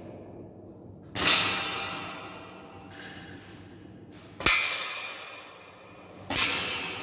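Three shots from a Weihrauch HW100 pre-charged pneumatic air rifle in .177, each a sharp crack with a long echoing tail from the indoor range. There is a softer click between the first two shots.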